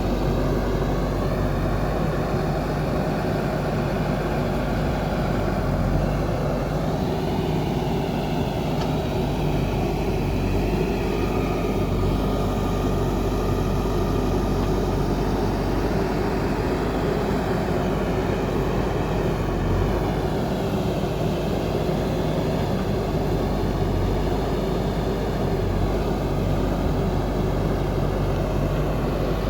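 JCB backhoe loader's diesel engine running steadily under work, its pitch rising and falling now and then as the hydraulics are worked.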